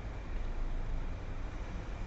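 Parking-lot ambience by a busy road: a steady low rumble of passing traffic, with no distinct nearby events.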